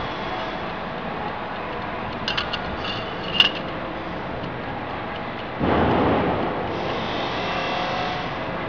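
Hand tools working on a potato peeling machine's roller shaft: a few light metal taps and one sharp click, then a louder rough rubbing and scraping of tool and gloved hand against the shaft and frame.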